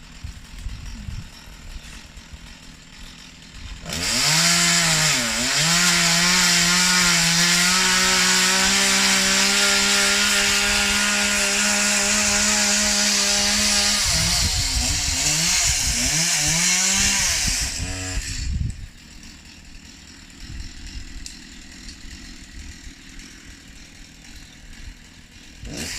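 Chainsaw revving up about four seconds in and running at high throttle with a steady pitch. Its pitch then rises and falls several times before it stops abruptly, about eighteen seconds in.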